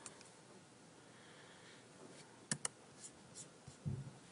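Faint clicks on a laptop's touchpad: a single click, then a quick pair of clicks about two and a half seconds in, with a few fainter ticks after.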